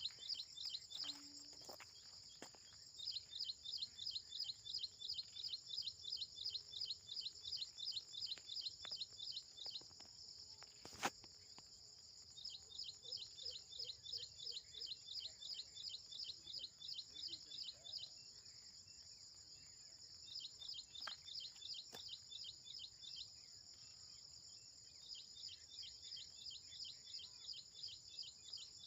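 A bird repeating rapid, high, falling chirps, about three or four a second, in runs of several seconds with pauses between, over a steady high insect trill. A single sharp click about eleven seconds in.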